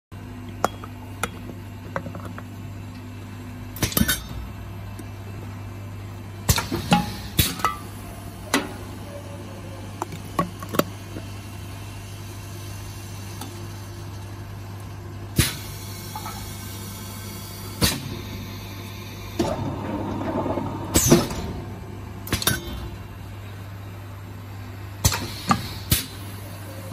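Tinplate cans and lids clinking and knocking against the metal parts of a vacuum can seaming machine as they are handled and loaded, over a steady low hum. There is a brief rush of noise about twenty seconds in.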